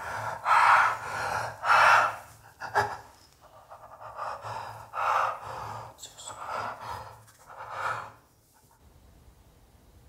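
Heavy breathing and gasps from a couple in an embrace, a breath about every second, loud at first, then softer, stopping about eight and a half seconds in.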